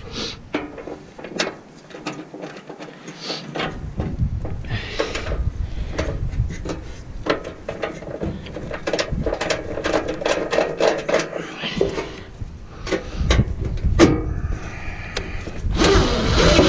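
Irregular clicks, knocks and rubbing as gloved hands and a cordless drill-driver work bolts on a truck's underhood panel, with a low wind rumble on the microphone that drops out at times.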